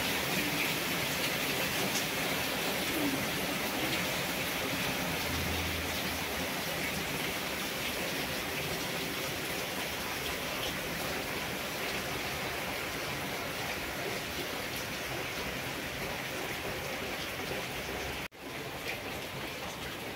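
Steady rain falling, an even hiss of downpour, with one brief dropout where the recording cuts about eighteen seconds in.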